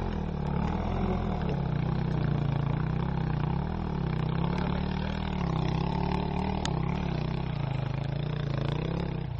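Enduro motorcycle engine running at low revs while climbing a rocky trail, its pitch rising and falling repeatedly as the throttle is worked.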